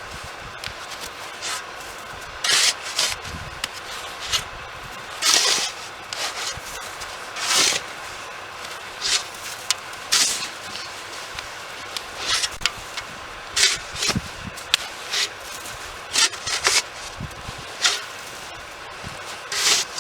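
Snow shovel scraping and scooping snow in short, irregular strokes about every second or two, a few of them longer scrapes.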